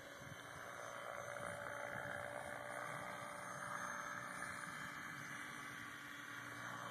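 Radio-controlled Compass model helicopter flying: a steady whine from its motor and rotors, which grows louder over the first couple of seconds and then holds.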